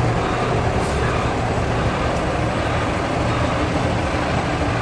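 Ready-mix concrete truck's diesel engine running steadily, a low even drone.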